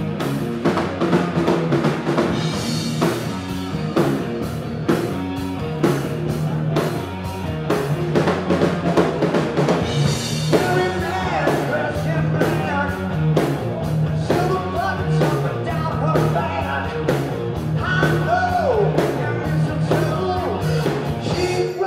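Live rock trio playing loudly: drum kit keeping a steady beat under electric guitar and electric bass.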